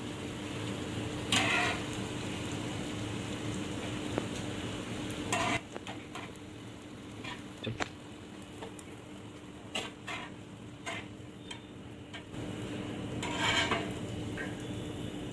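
Hot ghee sizzling as jalebis deep-fry, with steel tongs and a spoon clinking against metal pans now and then. The sizzle drops away for several seconds in the middle and comes back near the end.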